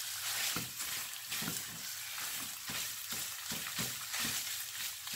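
Shredded beef in tomato sofrito sizzling in a nonstick frying pan: a steady frying hiss. A silicone spatula stirs and scrapes through it with about two strokes a second.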